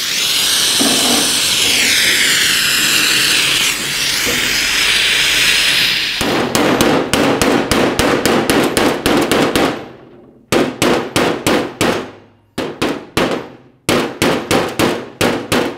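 A gas torch hisses steadily for about six seconds while heating the bent sheet-steel door panel. Then a hammer beats the metal: a quick run of blows first, then short groups of blows with brief pauses between them.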